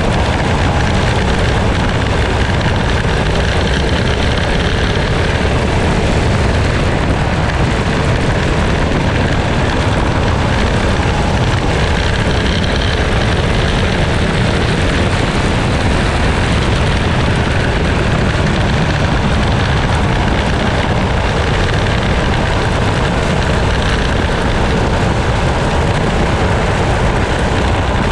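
Onboard sound of a dirt racing kart lapping at speed: its engine running hard under a steady rush of wind over the open cockpit, without a break.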